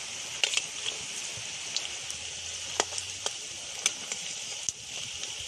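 Katla fish roe fritters in besan batter frying in hot oil in a kadai. The oil makes a steady sizzle with scattered sharp pops and clicks, and a metal spatula knocks on the pan as it turns the fritters.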